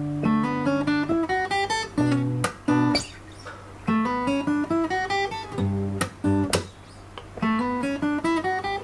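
Acoustic guitar alternating strummed chords with three quick rising single-note runs up the D major scale, each note picked separately.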